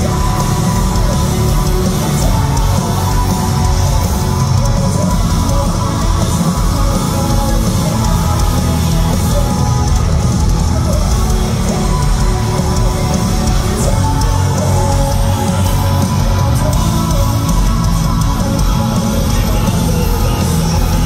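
Metalcore band playing live at full volume: distorted electric guitars, bass and pounding drums in a dense, unbroken wall of sound, heard from within the audience.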